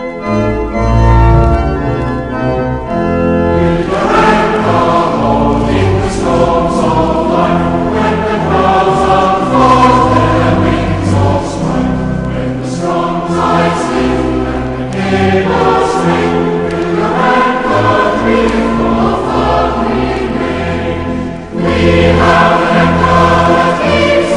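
Background music: held organ chords, then a choir singing with organ accompaniment from about four seconds in.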